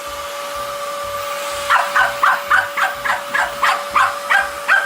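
A dog yipping in rapid, even repeats, about four a second, starting about a second and a half in. Under it runs the steady hum and hiss of a motorised appliance.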